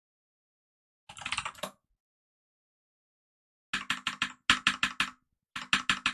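Computer keyboard typing in short runs of rapid keystrokes: a brief run about a second in, then two quicker, louder runs in the second half.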